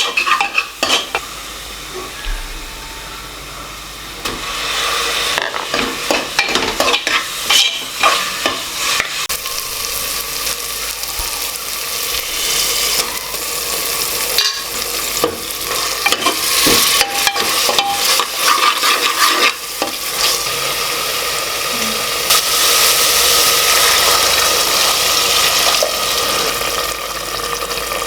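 Food frying in hot oil in a cooking pot, sizzling steadily, while a spoon stirs it with repeated scraping strokes.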